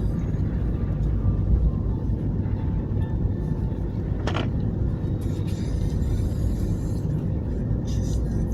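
Steady low rumble of a car driving, with one brief click about four seconds in.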